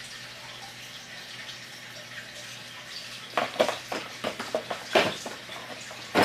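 Several sharp plastic clicks and knocks, starting about halfway through and ending with one louder knock, from the small plastic heads of a baby hair trimmer being handled, over a steady background hiss.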